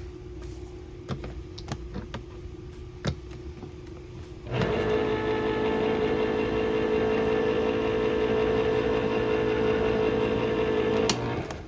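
A small electric kitchen appliance motor runs with a steady hum for about six seconds, switching on and off abruptly, after a few light clicks and knocks.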